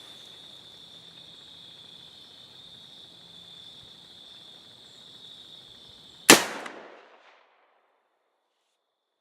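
A single gunshot from a Ruger Super Redhawk .44 Magnum revolver about six seconds in, loud and sharp, with a short echo trailing off over about a second. Before it, a steady high-pitched whine.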